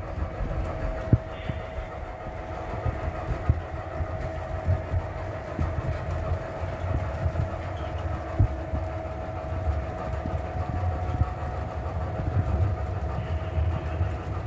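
O gauge model freight train rolling past: wheels rumbling and clicking over the rail joints, with a steady mid-pitched whine.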